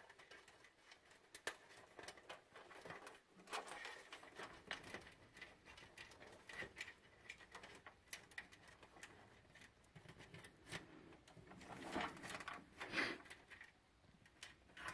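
Faint, irregular clicks and rustles of PC front-panel wires and small plastic connectors being handled and sorted inside a computer case. A few louder clicks come near the end.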